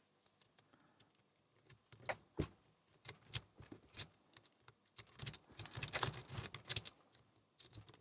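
Small metal lockpicking tools and a padlock clicking and clinking as they are handled, scattered at first and busier about five to seven seconds in.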